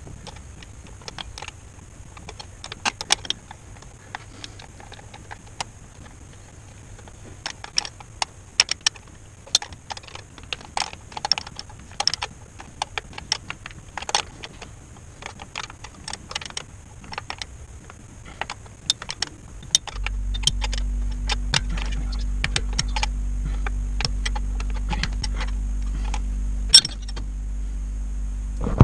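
Metal tool clinks and clicks as a spanner works the fuel line fitting on a diesel engine's mechanical lift pump. About two-thirds of the way in, a steady low hum starts and carries on under the clicks.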